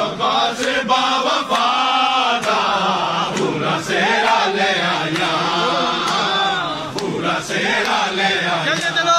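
A crowd of men chanting a devotional song together, with sharp beats about once a second.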